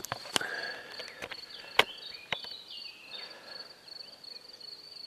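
Crickets chirping in a steady, fast-pulsing trill, with a few sharp clicks over it, the loudest a little under two seconds in.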